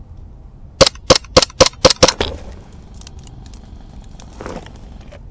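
Airsoft gun firing six sharp, loud snaps in quick succession, about four a second, then stopping. A brief rustle follows near the end.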